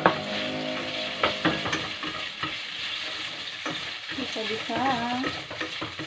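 Marinated pork strips sizzling in hot oil in a stainless frying pan, stirred with chopsticks. A few sharp clicks of the chopsticks against the pan, the loudest right at the start.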